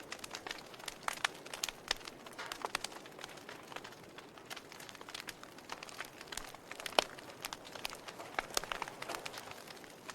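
Logs burning in a fireplace: irregular crackles and sharp pops over a soft hiss, with the loudest snap about seven seconds in.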